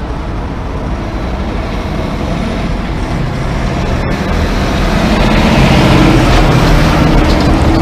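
Kenworth semi-truck's diesel engine pulling a loaded trailer through a turn and past close by, getting louder as it approaches and loudest about six seconds in.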